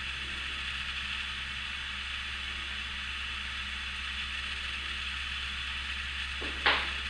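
Steady hiss with a low hum in the background. Near the end comes one sharp knock as the steel smooth rod is set down on the worktable.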